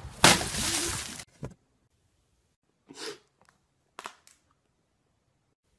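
A person landing hard on backyard ground: a loud, rough crash about a second long just after the start. Two faint, brief sounds follow around three and four seconds in.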